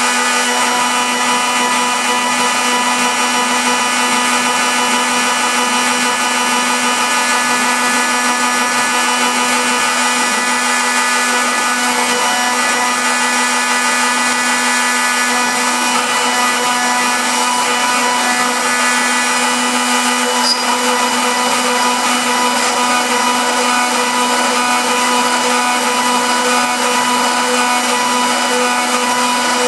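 CNC router spindle running steadily at speed while a small engraving bit cuts lettering into an MDF disc: a constant pitched hum with several fixed tones over a steady cutting hiss.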